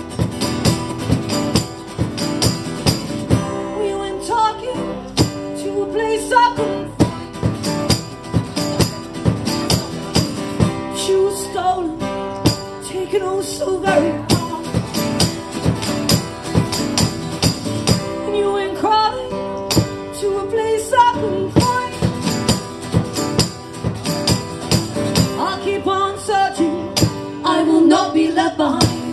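Live band playing the opening of a song: a tambourine and percussion on a steady beat, with guitar, and voices singing in repeated phrases.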